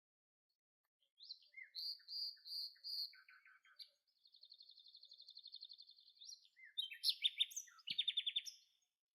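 Songbirds singing and calling: after about a second of silence come a few high clear notes, then a long even trill, then a louder rapid series of notes near the end.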